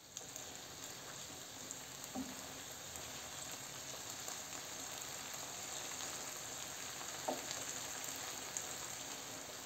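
Chickpeas in tomato sauce sizzling steadily in a stone-coated frying pan while a spatula stirs them, with a brief knock of the utensil on the pan about two seconds in and again about seven seconds in.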